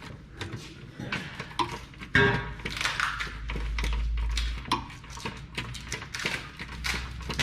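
Metal hand tools clicking and knocking against car parts, with faint music in the background and a low rumble through the middle.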